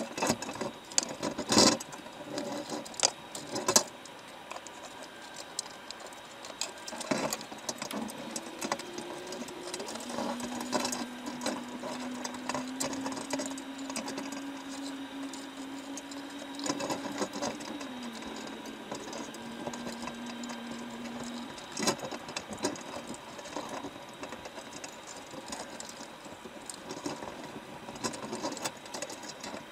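Underwater sound inside a baited crab trap: constant crackling and ticking, with sharp knocks now and then, several of them in the first few seconds and one more a little past the middle. A faint steady hum comes in about a third of the way through, drops in pitch and stops shortly after the middle.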